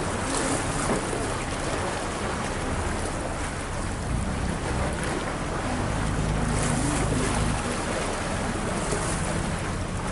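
Boat engine running with a steady low hum, water rushing and splashing along the hull, and wind buffeting the microphone. The splashing swells briefly a few times, most strongly around six to seven seconds in.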